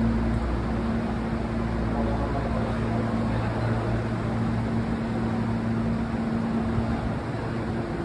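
Hankyu electric train standing at the platform, its onboard equipment humming steadily with several low, unchanging tones over a noisy hiss.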